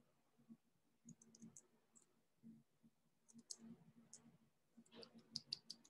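Faint computer mouse clicks in small clusters, with a quicker run of several clicks near the end: clicking to place pen-tool anchor points along a selection path.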